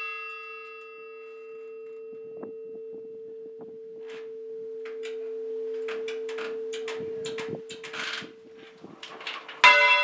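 Church bell hung for full-circle ringing: the last strike's ringing fades to a long, steady hum note while the bell rests mouth-up at the balance, with scattered knocks and rustles. About half a second before the end it swings over and is struck again, a loud clang with ringing overtones.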